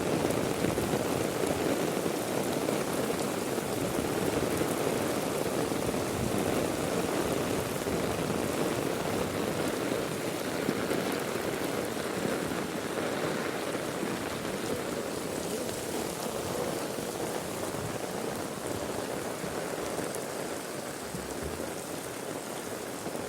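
Heavy rain pouring down steadily, a dense even patter that eases slightly toward the end.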